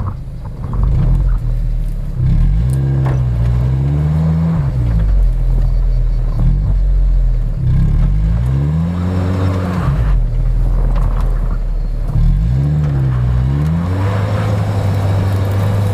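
Off-road 4x4's engine revving up and falling back three times, then holding a steady note near the end.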